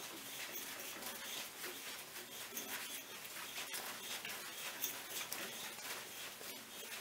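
Hand tap turned with a T-handle tap wrench, cutting threads in a small hole in a metal plate: faint scraping and creaking with many small metallic clicks.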